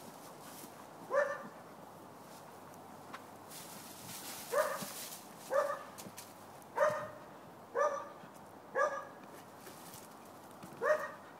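A dog barking in play at a basketball: seven short barks, one near the start, then a run of five about a second apart, and a last one near the end.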